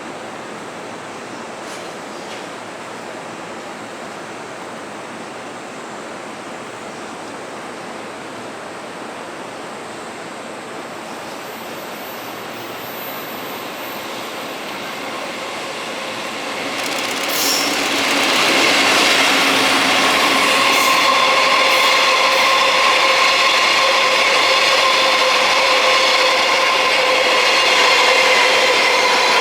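A freight train hauled by an EF65 electric locomotive passing through a station: a steady hiss at first, then from about sixteen seconds in the train comes up loud and runs past with a steady whine of several tones over the rumble of the wheels.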